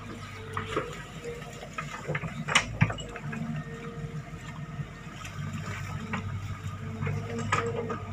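Hydraulic excavator engine running steadily while the bucket digs through wet mud, with sloshing, squelching mud and a few sharp knocks of the bucket. The two loudest knocks come close together about two and a half seconds in.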